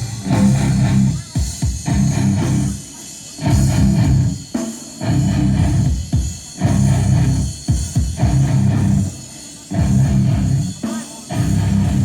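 Rock music with heavy bass played loud through a large sound system on a loudness test, the bass riff coming in chopped blocks of about a second with short gaps between.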